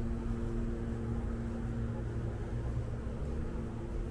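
City street ambience: a steady low traffic rumble with a droning machine hum that weakens in the middle and returns near the end.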